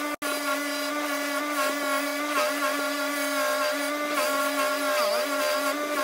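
Record Power bench grinder running with a steady hum, its pitch dipping briefly about three times as a cast metal bar is pressed against the wheel.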